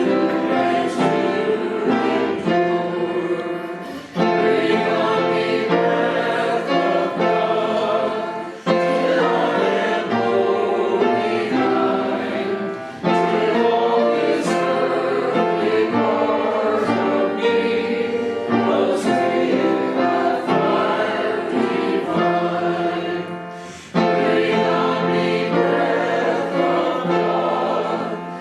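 Church congregation singing a hymn together in sustained phrases, with a brief drop between phrases every four or five seconds.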